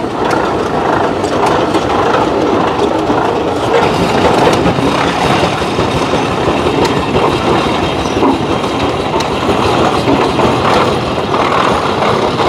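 Antique tractors running as they pass by, a loud, steady mechanical running noise with no clear rhythm.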